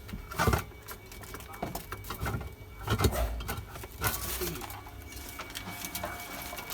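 Irregular knocks and clatter of objects being handled, strongest about half a second in and again around three and four seconds, over a faint steady high-pitched tone.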